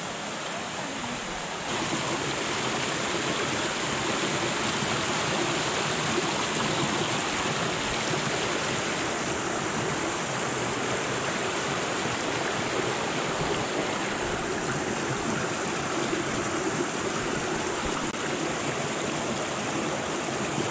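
Creek water rushing over rocks: a steady, even rush of running water that gets louder about two seconds in.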